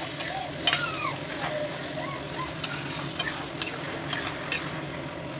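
A spatula clinking and scraping in an aluminium kadhai as watery egg curry is stirred, with sharp irregular clicks over a steady sizzle from the hot pan.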